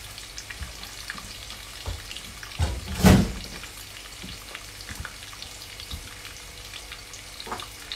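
Crumbed fish pieces shallow-frying in oil: a steady sizzle with fine crackling pops. About three seconds in there is a single louder knock.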